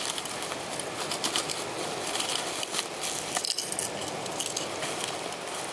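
Plastic bubble wrap crinkling and crackling in the hands as a fishing plug is pulled out of it, a run of quick irregular crackles that grows busier about three seconds in.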